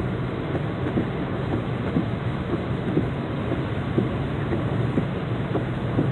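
Heavy storm rain falling steadily, a dense rushing with scattered sharper hits striking a surface.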